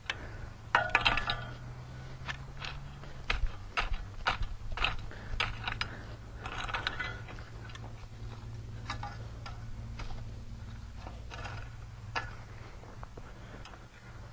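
A hand rake dragged and scraped through loose, freshly dug soil: irregular scratching strokes and small clicks as the tines and soil clods knock together, with a steady low hum underneath.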